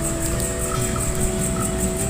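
Background music of slow, long held notes that change pitch now and then, over a steady high hiss.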